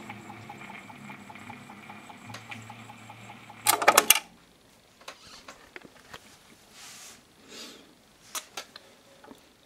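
Turntable spinning a clear plastic CD-spindle cover under a homemade cutting head, a steady hum with fast regular ticking from the head riding on the plastic. About four seconds in comes a short loud clatter of clicks, and the running noise stops. After that only scattered faint clicks and rustles of handling remain.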